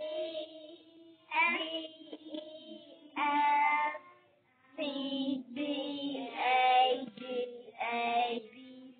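A class of young children playing a simple melody on electronic keyboards in steady held notes, while singing or chanting along together.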